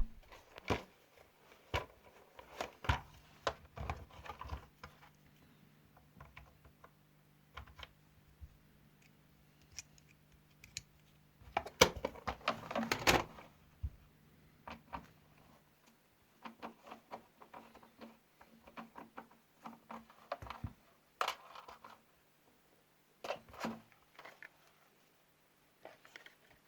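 Scattered clicks, taps and scrapes of small metal and plastic parts while an LED ceiling light fixture is unscrewed and taken apart, with a louder cluster of rattling about twelve seconds in. A faint steady low hum runs under the middle part.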